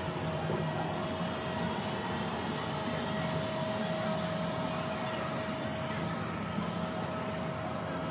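A COAYU window-cleaning robot's suction fan running steadily, with a constant whirring hiss and a faint steady whine. The fan holds the robot against the glass pane as it moves over it.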